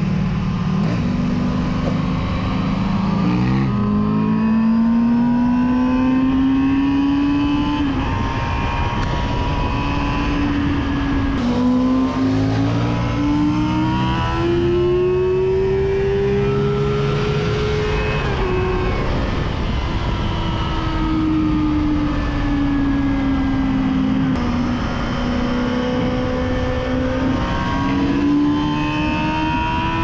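Sport motorcycles ridden hard at high speed, heard from the saddle of a Yamaha FZ6, with a KTM 1290 Super Duke R V-twin on an Akrapovic exhaust alongside and ahead. The engine pitch climbs in long runs, drops sharply at each gear change, and sags for a few seconds as the throttle comes off, all over heavy wind rush.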